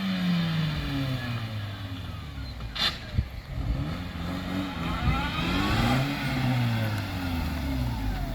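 Car engine revving: its pitch falls over the first few seconds, a sharp click comes about three seconds in, then the revs climb and drop away again.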